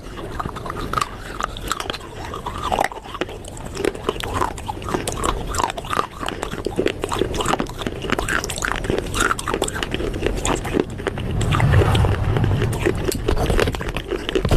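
Close-up crunching and chewing of baked clay pot pieces: many small, irregular crisp cracks as the clay is bitten and ground between the teeth, with a louder, deeper stretch about twelve seconds in.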